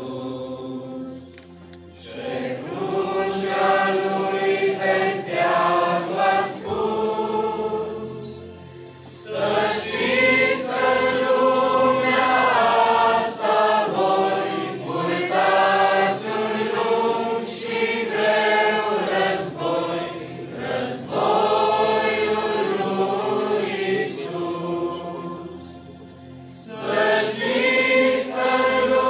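A group of men and women singing a Romanian hymn together as a choir, in long phrases with brief pauses between them.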